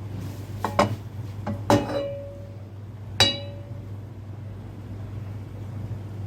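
Kitchenware clinking as a grill pan is readied with oil: a few light knocks in the first two seconds, two of which ring on as a clear clink, and one more sharp ringing clink about three seconds in. A steady low hum runs underneath.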